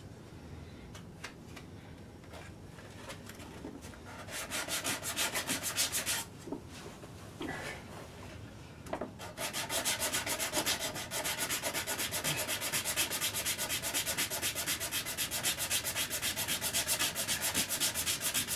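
Hand sanding block rubbed quickly back and forth on a wooden ukulele part. A short burst of strokes comes about four seconds in, then a pause, then steady rapid strokes from about nine seconds on. Before the first burst there are only a few faint handling clicks.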